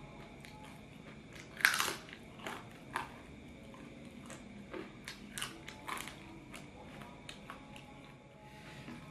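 Close-up eating sounds: a run of crunchy bites and chewing, the loudest bite about one and a half seconds in.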